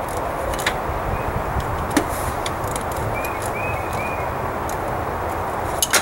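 Steady wind rumble on the microphone, with a few light clicks and knocks as an ignition coil is handled and refitted into its spark-plug well.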